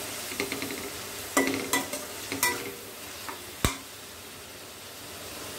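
Chopped tomatoes, chillies and garlic sizzling in oil in a non-stick pan as a spatula stirs and scrapes through them in a few strokes. A sharp tap about three and a half seconds in, then steady sizzling.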